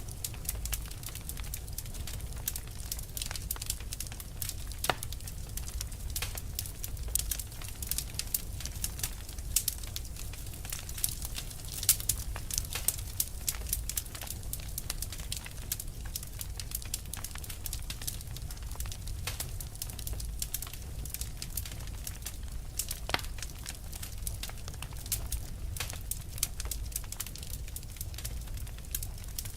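Wood fire burning: a steady low rumble under irregular crackles and sharp pops.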